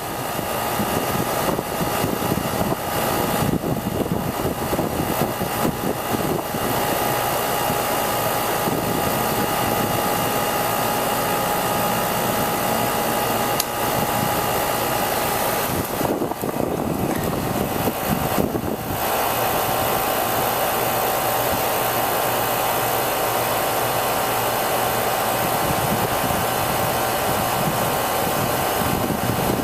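Rheem 4-ton R-410A condensing unit (RANL-049JAZ) starting up and running: the compressor and outdoor fan make a steady, loud hum with a few steady tones, switching on suddenly at the start.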